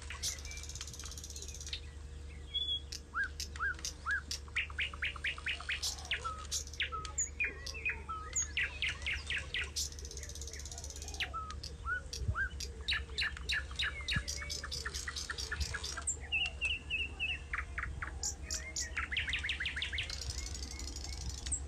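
Several songbirds chirping and singing, with rapid trilled phrases repeating every second or two, over a steady low hum.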